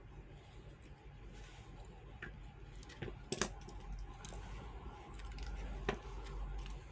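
Faint, scattered clicks and taps of small tools and phone parts being handled during a smartphone teardown, with a sharper click about three and a half seconds in and another near six seconds, over a low steady hum.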